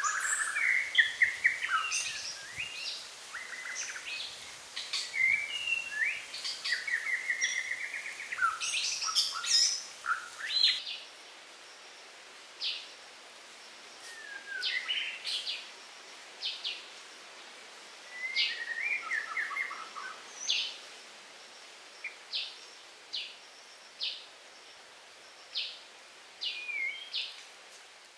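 Birds chirping and singing: a busy mix of trills and whistled calls that thins after about ten seconds to short single chirps about once a second.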